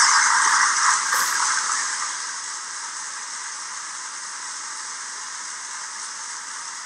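Large audience applauding, loud at first and fading after about two seconds to softer steady clapping.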